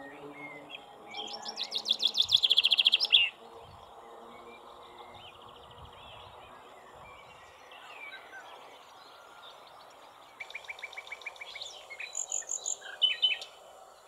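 Common chaffinch singing two song phrases, the first about a second in and the second about ten seconds in. Each is a fast run of repeated notes that grows louder and ends abruptly, over a faint steady background.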